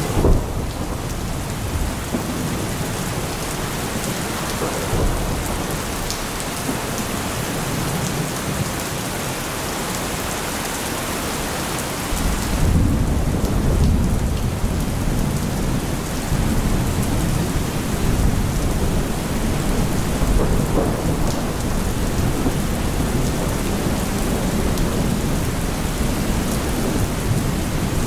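Steady rain falling, with thunder: a deep rumble of thunder rolls in about twelve seconds in and keeps rumbling under the rain.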